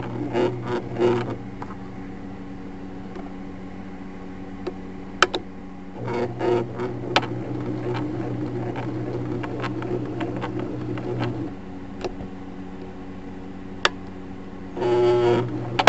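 Electric sewing machine running with its cover off. It hums steadily and speeds up in spells of fast rhythmic chatter: at the start, from about six to eleven seconds in, and briefly near the end. A few sharp clicks come from a gear train that the owner finds broken and binding, its teeth not lining up.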